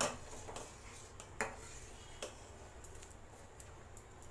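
Long steel spoon clinking against a steel pot while stirring semolina kheer: a few sharp metallic clinks, the loudest at the very start and about a second and a half in, then lighter taps.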